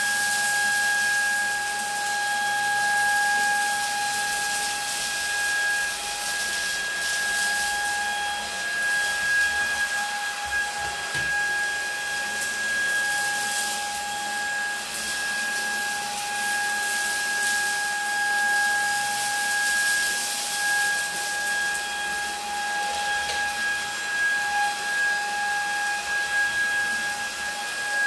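Lacidoll cordless wet-dry stick vacuum running at its second, higher suction speed: a steady high-pitched motor whine over rushing air, with light crackles of rice, lentils and other dry debris being sucked up the tube.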